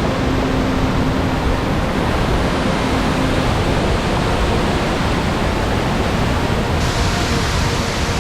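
Waterfall in heavy flood after rain: a loud, steady rush of falling water, growing slightly hissier about seven seconds in.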